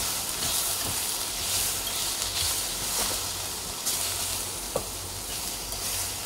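Sliced onions, garlic, ginger and shallots sizzling in a little oil in a clay pot as they are stir-fried with chopsticks, a steady hiss with a few light knocks of the chopsticks against the pot.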